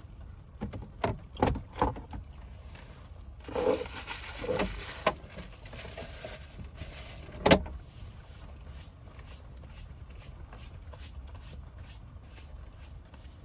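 Food packaging being handled while eating: a few short clicks and rustles, then one sharp louder click about seven and a half seconds in, over a steady low hum.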